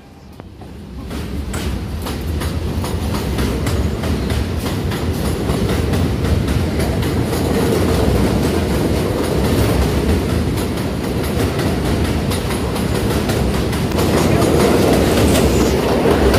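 New York City subway train of R42 cars running past close to the microphone, steel wheels clicking over the rail joints in a dense clickety-clack over a steady rumble. The sound builds over the first two seconds and swells again near the end.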